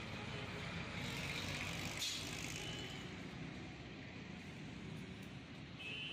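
Steady low rumble of a motor vehicle engine running, under even background noise, with a faint click about two seconds in.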